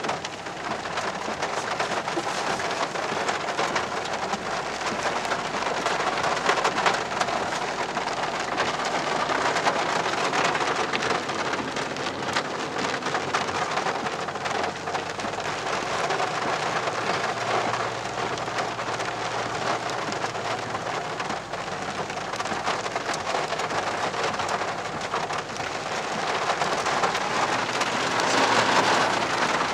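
Heavy rain pattering steadily on a four-wheel drive's roof and windscreen, heard from inside the cab, growing a little louder near the end.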